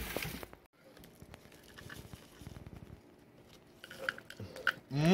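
A man drinking from a cup with faint gulping and swallowing sounds, after a rustle of handling that fades in the first half-second. Near the end comes a loud drawn-out vocal sound from him, its pitch rising then falling.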